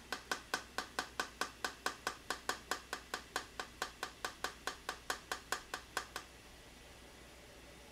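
Hand-twisted pepper grinder clicking steadily, about four clicks a second, as pepper is ground; the clicking stops about six seconds in.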